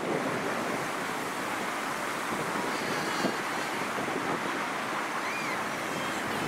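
Steady wind rushing over the microphone, an even hiss with no gusting peaks, with a couple of faint high chirps about halfway through.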